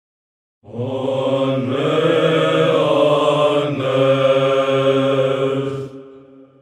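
Byzantine chant sung by a choir of chanters, the melody moving over a steady held low drone (the ison). It begins about half a second in after silence and fades away near the end.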